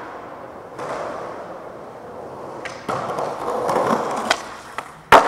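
Skateboard wheels rolling over concrete, growing louder about three seconds in, with a few small clicks and then one sharp, loud crack of the board near the end.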